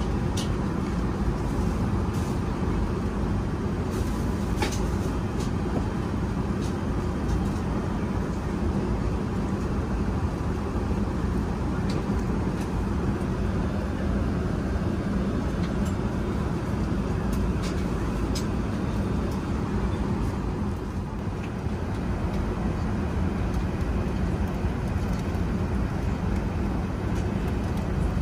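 Steady cabin noise of an Airbus A380-800 in cruise: an even roar of airflow and engines, heaviest in the low rumble. A few light clicks and taps sound now and then.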